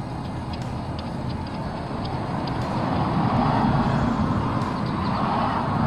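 Steady vehicle rumble in the background, swelling louder about halfway through.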